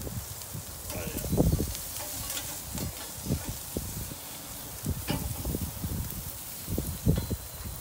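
Ribeye steaks sizzling on a metal mesh grill grate while a metal spatula scrapes under them and flips them, with a few light clicks. Irregular low rumbling gusts of wind on the microphone, strongest about a second and a half in and again near the end.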